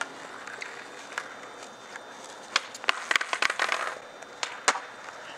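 Skateboards clacking on the ground: a few sharp clacks, then a dense cluster with wheels rolling in the middle, and one loud clack near the end.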